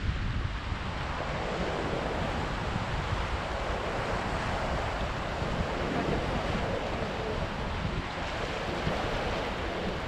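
Ocean surf breaking and washing over the rocks at the water's edge: a wave's rushing wash swells after a second or two and eases off near the end. Wind buffets the microphone with a low, uneven rumble underneath.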